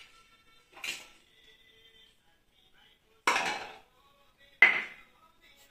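Metal dishes and utensils clinking and knocking together three times, the last two knocks the loudest, with a brief ringing after the first.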